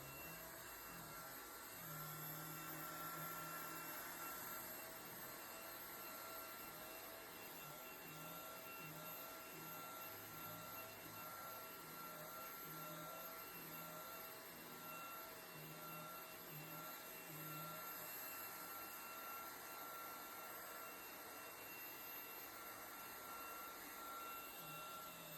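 Vacuum cleaner running, a faint steady hum with high whining tones and a low hum that comes and goes.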